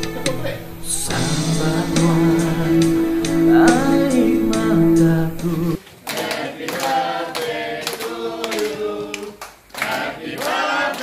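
Background music with a steady held low tone under a melody, which cuts off suddenly about halfway through. A group of people then sings together.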